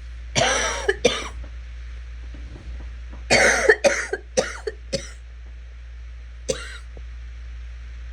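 A sick, congested person coughing: two coughs near the start, a fit of about five coughs in quick succession a few seconds in, then one last cough.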